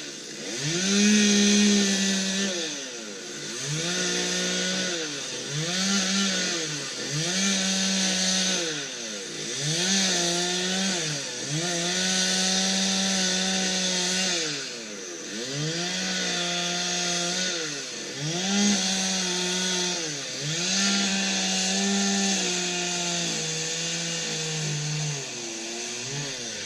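Two-stroke chainsaw revving in about a dozen bursts of one to three seconds, falling back in pitch between each, as it cuts the larch's wood. Near the end the pitch sags lower, as the saw bogs down in the cut.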